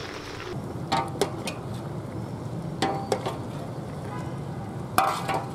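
A metal ladle clinking and scraping against the side of an aluminium stockpot as sauce is spooned up and poured back over the meat: a few sharp clinks about a second in, two more about three seconds in and the loudest near the end, over a steady hiss.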